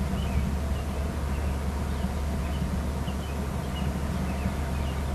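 Steady low rumble of outdoor background noise on the nest camera's microphone, with faint short bird chirps coming every second or so.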